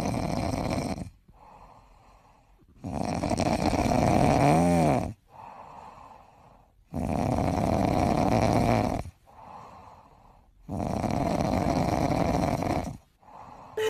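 A sleeping cat snoring: long, loud snores of about two seconds each come roughly every three and a half seconds, with softer breaths in between.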